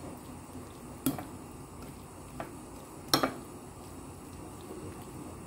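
Black plastic tongs tossing marinated beef slices in a ceramic dish, knocking against the dish a few times; the loudest is a quick double knock about three seconds in.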